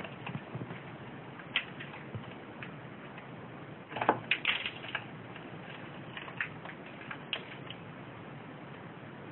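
Diamond doves pecking seed from a hand: scattered sharp beak clicks and seed ticks, with a quick cluster of louder pecks about four seconds in.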